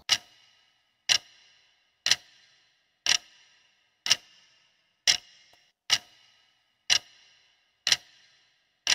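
Clock-ticking sound effect, a sharp tick about once a second, counting down the seconds of a quiz answer timer.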